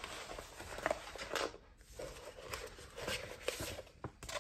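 Sheets of sticker paper and vinyl rustling and sliding against each other as they are handled and shuffled, with small irregular taps and crinkles.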